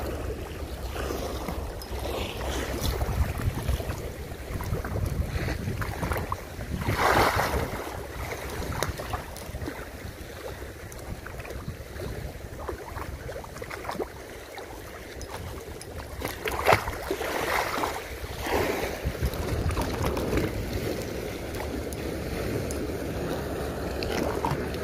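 Wind rumbling on the microphone with water washing and lapping at the shore. There are louder rough surges about 7 and 17 seconds in.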